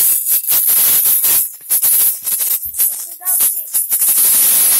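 A maraca shaken hard and fast in irregular bursts, a bright rattling hiss broken by short gaps.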